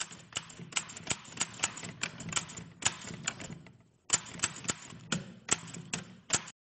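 Typewriter keys clacking in an irregular run of about four strikes a second, pausing briefly about four seconds in and stopping shortly before the end: a typewriter sound effect timed to text being typed out.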